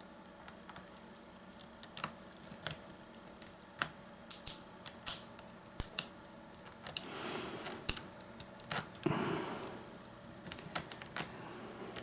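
Lock picks and a tension wrench working in an Ace rekeyable padlock, single-pin picking: irregular sharp metallic clicks and ticks, with two brief soft rustles about seven and nine seconds in.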